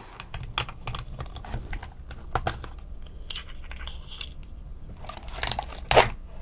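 Plastic toy tank parts and small tools being handled and set down on a workbench: scattered light clicks and taps, with a couple of louder knocks near the end.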